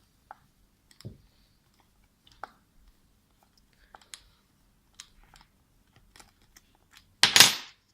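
Scattered light clicks and taps of a wheel tool working the wheel nut loose on an RC nitro truck, with one louder short rustling noise near the end.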